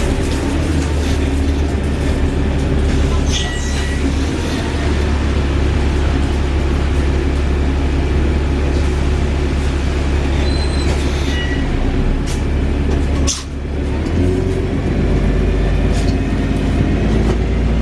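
Wright Gemini 2 VDL DB300 double-decker bus running with its engine and drivetrain giving a loud, steady whir. The sound drops briefly about thirteen seconds in, then picks up again, with a couple of short high squeaks along the way.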